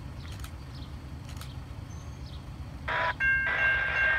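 Horn of an approaching Amtrak P42DC diesel locomotive sounding a steady chord of several notes, starting about three seconds in. Before it, faint bird chirps over a low steady rumble.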